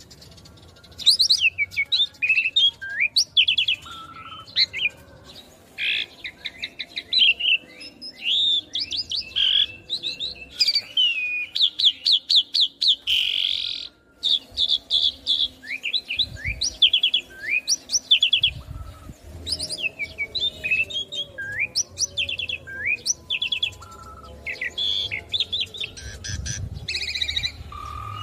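Asian pied starling singing a long, varied song of quick chirps, sliding whistles and fast rattling trills, with a brief pause about halfway through.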